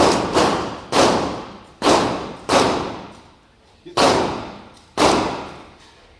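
M16 rifle firing single shots, six sharp cracks at uneven intervals, each trailing off in a short echo, with a pause of over a second before the last two.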